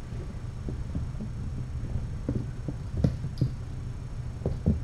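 Soft low thumps of kittens' paws landing as they run and pounce on the floor, several spread apart with two close together near the end, over a steady low hum.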